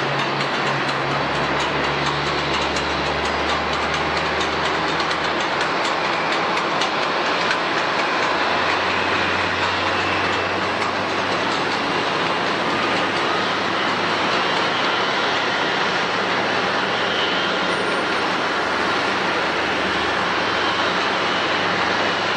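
Jet airliner engines running: a steady, loud rush of engine noise with a faint whine over it, and a whine rising near the end.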